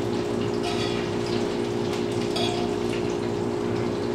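A steady low hum from a running fan or motor, with a few light clinks of a metal fork against a pan as bacon and onions are lifted out onto paper towel.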